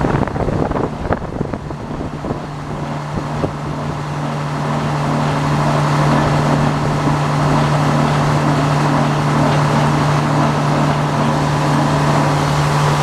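Sawmill engine running steadily, with a few knocks and clatters in the first few seconds.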